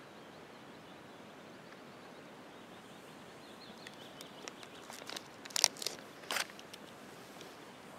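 Low, steady outdoor background with a brief cluster of short crunching and rustling noises from about four seconds in, the two loudest about three-quarters of a second apart.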